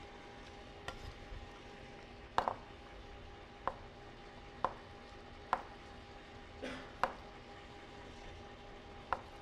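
A kitchen knife cutting through soft cooked butternut squash onto a wooden cutting board: a sharp knock of the blade on the board about every second, seven or so in all, at an uneven pace.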